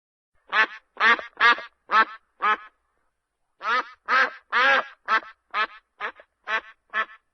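Duck quacking: five quacks, a pause of about a second, then a quicker run of about eight more.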